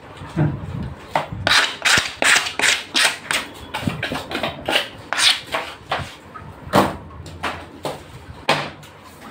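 A cleaver chopping chicken on a wooden chopping block: a steady run of sharp knocks, about two or three a second.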